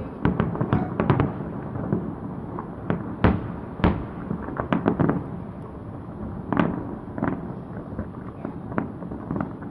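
Fireworks display going off: an irregular run of sharp bangs and cracks, a quick cluster in the first second or so, then heavier single booms spaced out, the loudest a little after three and four seconds in.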